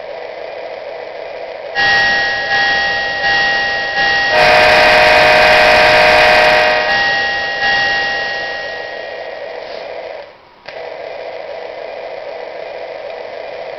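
Toy freight train's built-in electronic sound effects over a steady hum: a run of ringing, chime-like tones that each fade away, then a loud steady horn blast of about two and a half seconds, then more fading tones before the hum carries on alone.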